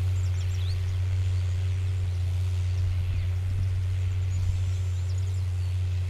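New Holland T6.130 tractor engine running at a steady low drone under load while pulling a Baldan 24-disc offset harrow. Small birds chirp over it, a few short rising chirps near the start and again near the end.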